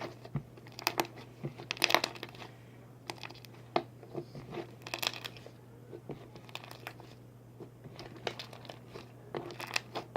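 Slime being squeezed and pressed by hand, making irregular sharp pops and clicks as trapped air bursts.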